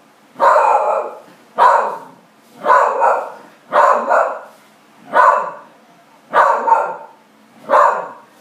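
A Parson Russell Terrier barking: seven loud barks at a steady pace of about one a second.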